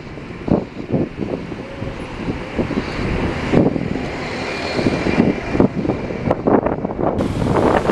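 Street traffic: a single-decker bus drives past close by, while gusts of wind buffet the microphone in irregular blasts.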